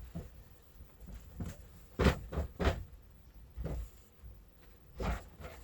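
A few short knocks and scuffs of objects being handled, loudest about two seconds in and again about five seconds in.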